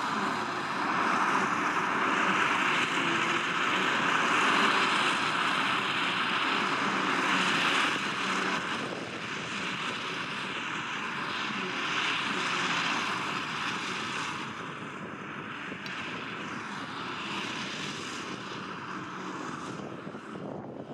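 Claas Jaguar 870 forage harvester at work chopping grass silage: a steady machine drone of engine and chopping cylinder with a thin high whine, mixed with the tractor hauling the trailer alongside. The sound grows somewhat quieter over the second half.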